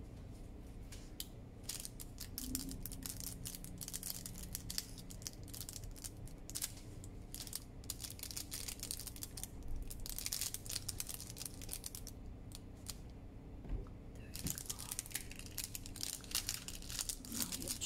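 Parchment baking cup crinkling and crackling as it is handled, glued and its folded flaps pressed down, in quick irregular crackles that grow denser near the end.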